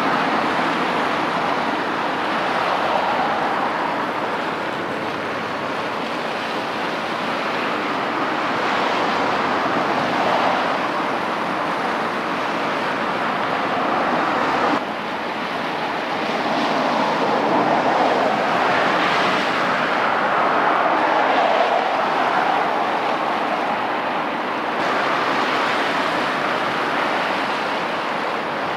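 Steady rushing outdoor noise with no distinct tones, swelling and easing every few seconds, with a sudden drop in level about fifteen seconds in.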